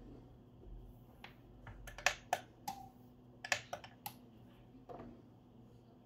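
A quick irregular run of light clicks and taps from a magnetic charging cable's connector being handled, with the loudest clicks around two seconds in and again around three and a half seconds in.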